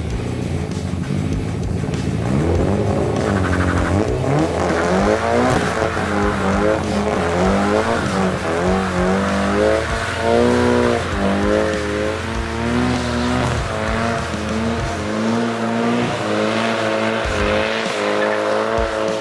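Nissan 180SX's turbocharged SR20DET four-cylinder revving hard again and again, its pitch rising and falling, with tyres squealing in a burnout.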